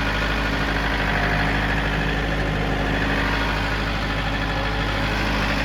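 An engine running steadily at idle, with a constant low hum and no change in speed.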